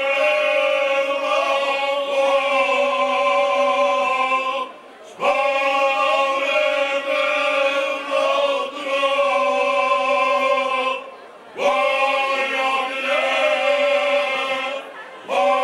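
Men's vocal group of five singing unaccompanied in close harmony, holding long sustained chords. The singing comes in phrases of about five to six seconds, with short breaks for breath twice and again just before the end.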